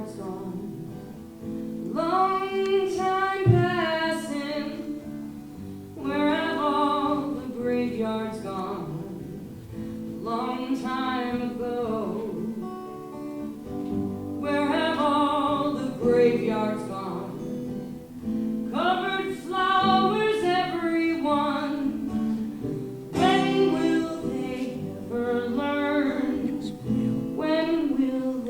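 A singer performing a song with acoustic guitar accompaniment, in sung phrases of a few seconds each with short breaks between.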